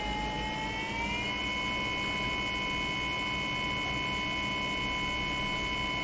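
24-volt brushless DC motor spinning under pedal control, giving a steady electrical whine. About a second in it speeds up, the whine rising a little in pitch, then holds steady.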